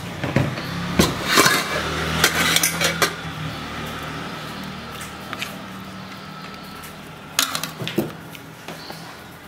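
Metal ladle clinking and knocking against the side of a steel cooking pot as it stirs soup. There is a cluster of clinks in the first few seconds and another short burst of them near the end.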